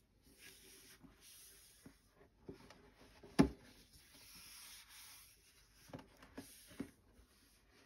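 White fabric gloves rubbing and sliding over a cardboard shoebox, a soft scuffing with a few light taps. One sharp knock on the box about three and a half seconds in is the loudest sound, and three lighter knocks follow about six to seven seconds in.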